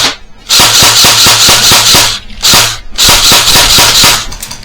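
Airsoft gun firing full-auto in three bursts: rapid, evenly spaced shots with a hiss, starting about half a second in. The middle burst is short, and the last burst stops just before the end.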